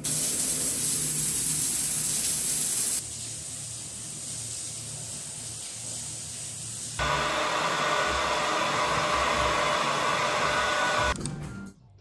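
Shower water spraying steadily, louder for the first three seconds and quieter after. From about seven seconds a hair dryer blows with a steady whine, stopping suddenly near the end.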